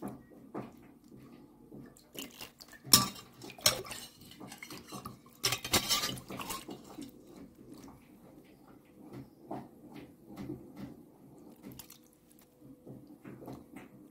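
Stainless steel ladle scooping broth out of a steel pot of boiled chicken, clinking and scraping against the pot, with broth splashing and dripping back in. The loudest clinks come about three seconds in and in a cluster around six seconds in, with lighter taps between.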